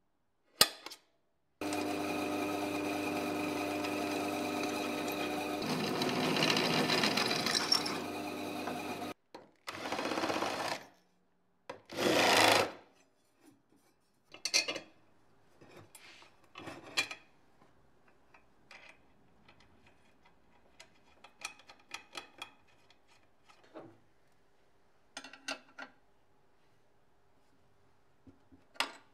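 A small electric motor runs steadily for about seven seconds and then stops. Two short bursts follow, then scattered light clicks and knocks of tools or parts being handled.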